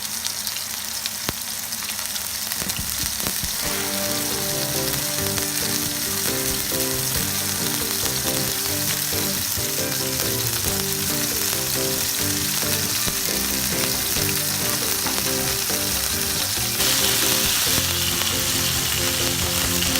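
Pieces of marinated rockling fish frying in hot oil: a steady sizzle that grows louder about 17 seconds in. Background music with shifting notes comes in about three and a half seconds in.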